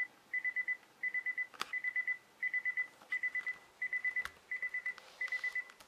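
SoundBot SB1023 alarm clock sounding its alarm: high electronic beeps in rapid groups of four, repeating about every 0.7 seconds.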